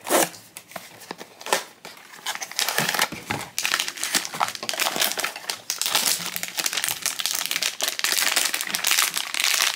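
Grey foil blind-box wrapper crinkling and crackling as hands work it open for the figure inside. A few sharp crackles come in the first two seconds, then the crinkling runs almost without pause from about three and a half seconds in.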